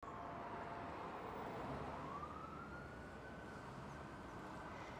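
Faint distant siren, one long tone that slowly rises in pitch about two seconds in and then holds, over low street noise.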